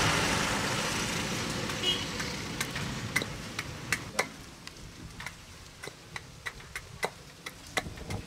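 Heavy machete-style knife blade cutting and chipping at a small wooden stick braced on a wooden block: a series of sharp, irregular clicks and taps. A passing vehicle's rushing noise fades away over the first few seconds.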